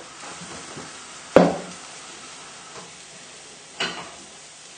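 Wooden spoon stirring milk into mashed potato in a saucepan, over the steady sizzle of a pan bubbling on high heat. A loud sharp knock comes about a second and a half in, and a smaller one near the end.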